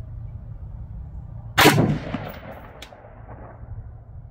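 A single AR-15 rifle shot about a second and a half in, with a ringing tail of about a second, and a faint short high ping about a second after the shot.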